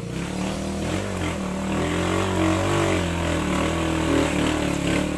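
Motorcycle engine running, its pitch rising and falling as it changes speed.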